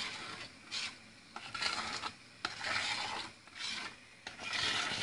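Metal spoon stirring thickening milk kissel in a stainless steel pot, scraping along the bottom in repeated strokes to keep the starch from sticking and burning.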